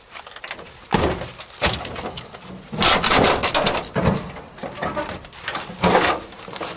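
Scattered knocks, scrapes and rustles from a rusted car wreck being handled and moved, a few separate bumps a second or so apart.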